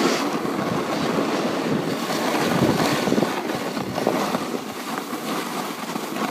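Snowboard sliding and carving over packed snow, a continuous scraping hiss that swells and eases with the turns, with wind on the microphone.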